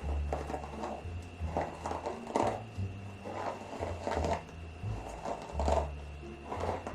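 Background music with a deep bass line that steps between notes and a steady beat.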